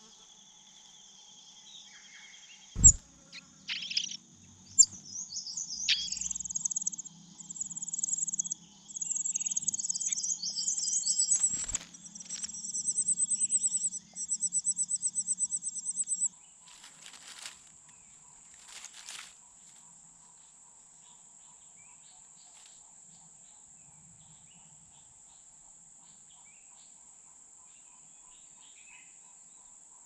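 Insects buzzing in a steady, high-pitched drone. From about five seconds in, a louder run of rapid, pulsing high chirps joins for about ten seconds. A single sharp knock comes about three seconds in.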